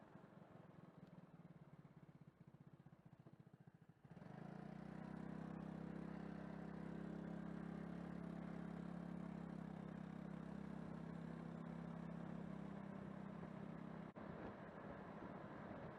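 A vehicle engine running at a steady pitch, cutting in abruptly about four seconds in and dropping away abruptly about two seconds before the end; before it, only a faint low flutter.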